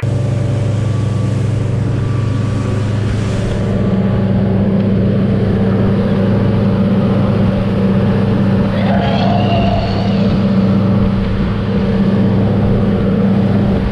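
Fishing boat's engine running steadily under way, with water rushing past the hull. The drone strengthens slightly about four seconds in.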